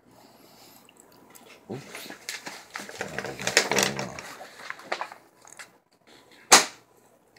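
Rustling and bumping handling noise as paper and the painting board are moved about, with one sharp knock about six and a half seconds in.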